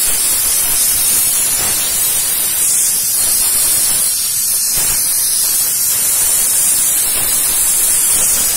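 Steam jetting from the hand-held lance of a Scarpavapor No Limits shoe-cleaning machine onto a shoe: a loud, steady hiss.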